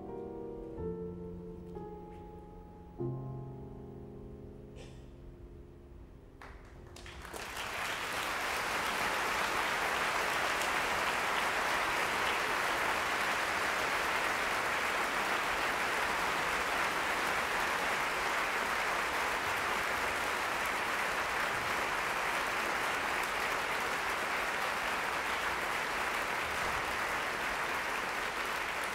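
Solo grand piano playing the final notes of a piece, the last chords ringing and dying away. About seven seconds in, the audience breaks into steady applause, which is the loudest sound.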